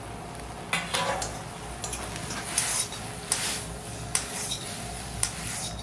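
A metal utensil clattering and scraping against a cooking pot while stir-frying pork with chili peppers. There are several sharp knocks, starting a little under a second in and coming roughly once a second.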